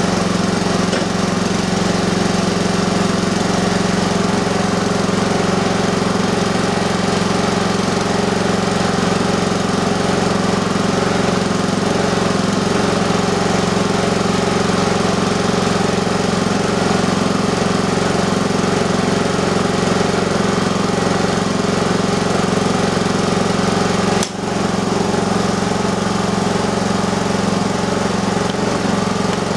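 Honda single-cylinder four-stroke engine driving a brushless generator head, running steadily off load. The generator is measured a bit low on voltage and hertz, a sign that the engine is turning slightly slow and the head needs work.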